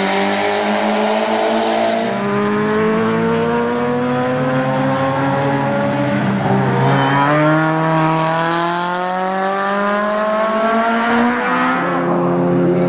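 Race car engines at full throttle, the pitch climbing steadily as the car accelerates and dropping at each upshift, about 2, 6.5 and 11.5 seconds in, before holding steady near the end.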